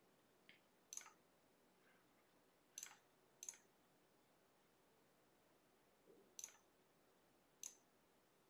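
Computer mouse clicking: about five sharp clicks spread irregularly, with a couple of fainter ones, over faint room tone.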